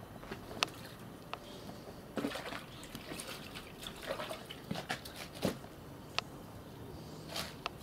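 Hands splashing and swishing water in a plastic basin, with drips and a few sharp clicks.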